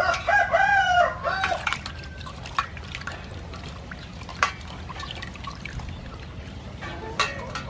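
A rooster crows once, a multi-part call lasting about a second and a half. Then water sloshes and splashes in a metal bowl as garlic leaves are rinsed by hand, with a few sharper splashes.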